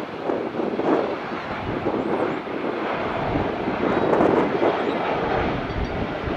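Jet airliner engine noise, a steady rushing rumble, with the deeper low end swelling from about halfway through.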